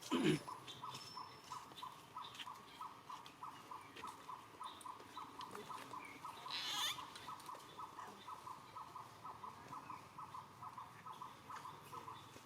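Baby monkeys squealing: a short falling squeal at the start and a louder high squeak about seven seconds in. Behind them runs a steady, even train of short calls, about three a second, from a bird or insect in the background.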